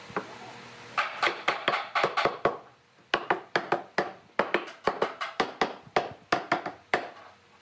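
Rapid wooden knocking, a hardwood stick striking a pine box frame about four to five times a second, with a short break near three seconds.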